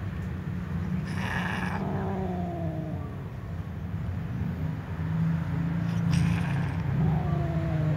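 Domestic cats meowing loudly at each other: two long, drawn-out calls that fall in pitch, one about a second in and one near the end, over a steady low hum.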